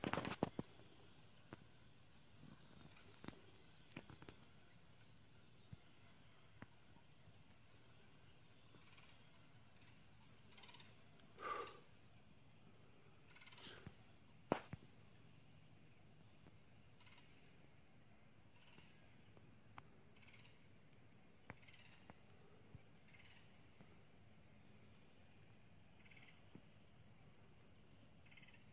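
Faint, steady chorus of crickets, a high continuous trill, with a few soft clicks and one short louder sound near the middle.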